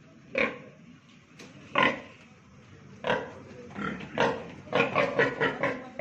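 Female pig grunting: a few spaced single grunts, then a quicker run of short grunts in the second half, while an insemination catheter is held in her.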